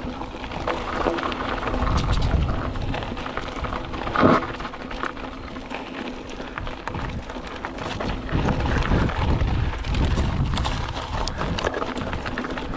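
Mountain bike rolling fast down dirt single-track: tyres crunching over dirt and roots with the bike's chain and frame rattling in quick clicks, and wind buffeting the microphone. A brief louder sound comes about four seconds in.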